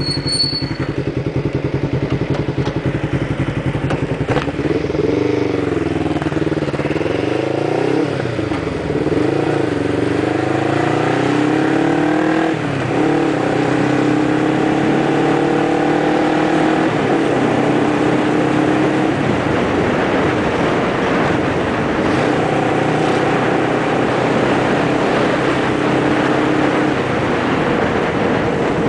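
Motorcycle engine running low at first, then accelerating from about five seconds in, its revs climbing and dropping back at several gear changes, then holding a steady cruise, with wind noise over the microphone.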